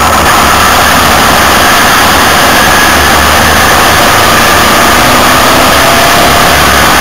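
Suzuki SV650 motorcycle on the move at up to 30 mph, heard from beside its rear drive chain: a loud, steady rush of wind and road noise over the running engine and chain, with a faint whine that rises slowly in pitch near the end.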